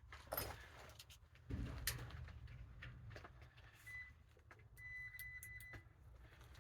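Digital multimeter's continuity beeper giving a short high beep, then a steady beep of about a second, among clicks of the test leads being handled. The beep sounds when the probes close a circuit.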